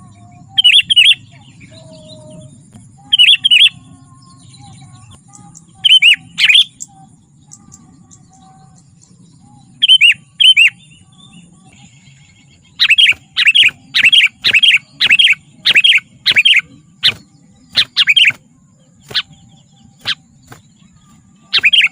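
Sooty-headed bulbul (kutilang) calling: short, bright chirping phrases, a few spaced seconds apart at first, then a quicker run of repeated calls over the second half, over a faint steady hum.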